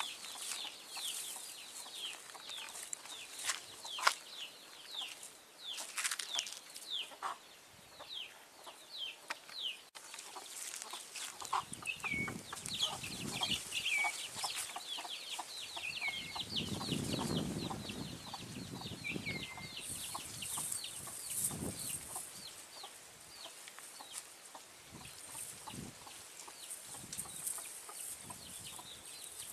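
Chickens clucking, with many short, high, falling chirps throughout.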